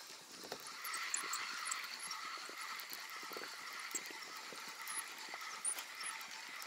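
A steady mechanical whirring that starts about a second in, with a few soft knocks of water against the boat.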